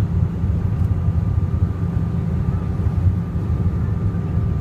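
Airliner cabin noise: a steady low rumble of the engines and airflow, with a faint thin whine above it.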